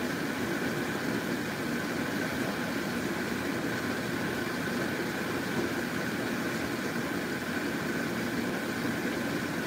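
Steady mechanical hum, even in level throughout, over a pot of soup simmering on the stove.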